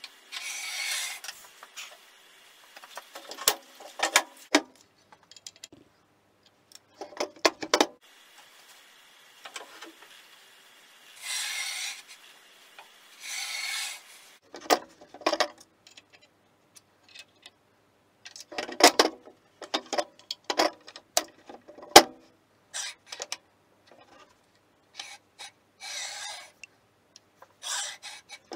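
A Betterley UNA-Gauge alignment jig sliding and scraping along the cast-iron table saw top and its miter slot, in short strokes, with sharp clicks and knocks as the metal gauge is set down and repositioned, while blade and fence alignment is checked.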